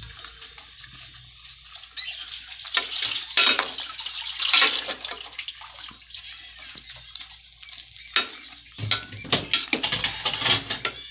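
Tongs stirring kangkong and shrimp in a pot of sinigang broth: sloshing and splashing in two spells, the second with a quick run of sharp clicks of the tongs against the pot.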